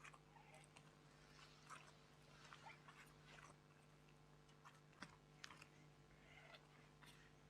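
Faint sticky clicks and crackles of slime being squeezed and stretched by hand, scattered irregularly with a slightly louder pop about five seconds in, over a low steady hum.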